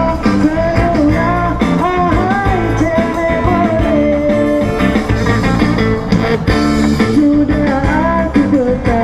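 Live street band playing rock music through a loudspeaker system, with a singer's voice carrying the melody over guitar, bass and drums.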